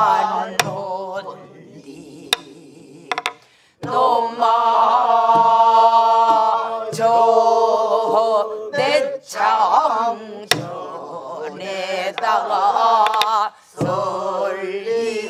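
Men and women singing a Namdo folk song (the South Jeolla style) together, long notes sung with heavy vibrato, the line breaking off at short pauses. A few sharp strokes, likely on a buk barrel drum, sound among the voices.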